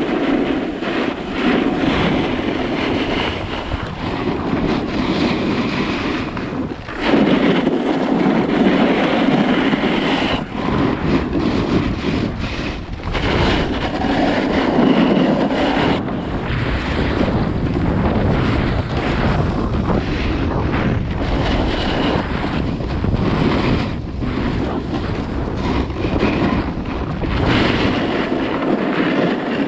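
Wind rushing over an action camera's microphone together with the steady hiss and scrape of edges sliding down packed, groomed snow, with a brief lull about seven seconds in.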